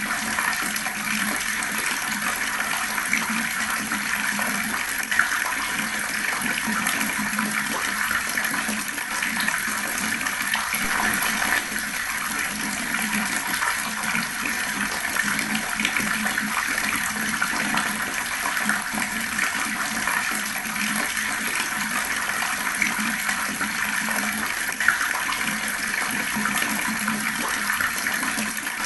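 Fast-flowing water gushing steadily, with a couple of brief sharper splashes.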